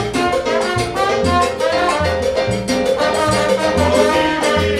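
Live salsa band playing an instrumental passage: a trombone and a keyboard piano carry the melody over a steady groove of timbales, congas and güiro, with a repeating bass pulse.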